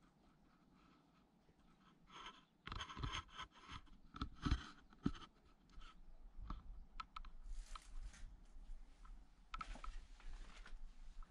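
Faint rustling, crunching and scraping that start about two seconds in and are loudest between two and five seconds, with a couple of sharp knocks. Scattered light clicks and softer rustles follow.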